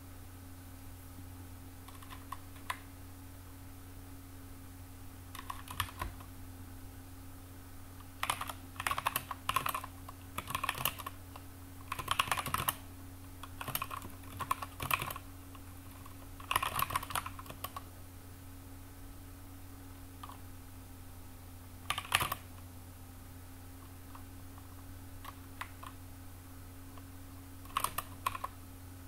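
Typing on a computer keyboard in short runs of quick key clicks with pauses between them, over a steady low hum.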